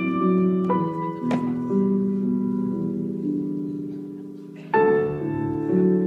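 Slow instrumental dance music: sustained keyboard-like chords that ring and slowly fade, with a new, louder chord struck about three-quarters of the way through.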